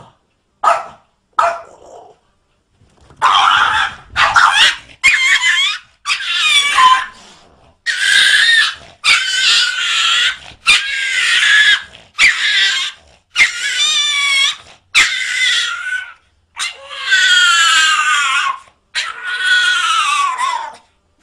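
A dog barking and howling in a run of about a dozen loud, high-pitched calls, some with a wavering pitch.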